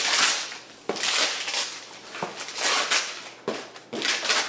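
Gift wrapping paper crinkling and rustling in four or five bursts as a present is unwrapped, with a couple of short sharp clicks.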